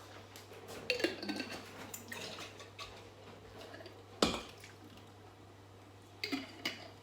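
A jar being rinsed out with a little water and emptied into a pot: scattered clinks and knocks of the jar against cookware, with dripping and pouring, and one sharp knock about four seconds in.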